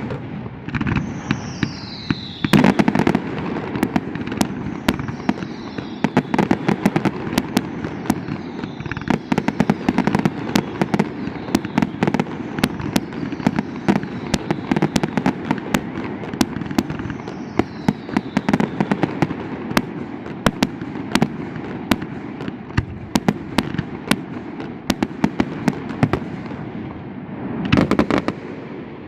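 Fireworks display: a fast, continuous crackle of bursts, with louder booms about two and a half seconds in and near the end, and several whistles that fall in pitch.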